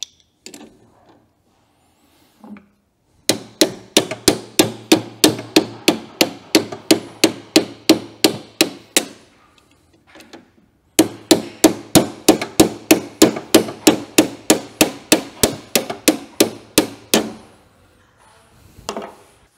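Hammer blows driving out the pin that joins the hydraulic cylinder rod to the sharpening stone on a John Deere 6000-series forage harvester. Rapid, even strikes, about four a second, in two runs of about six seconds with a short pause between.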